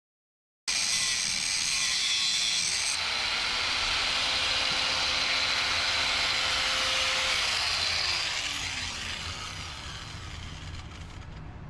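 Angle grinder with a cutoff wheel cutting through the steel axle tube of a front Dana 44, starting suddenly under a second in. About seven seconds in its whine falls in pitch as it spins down, and the sound fades.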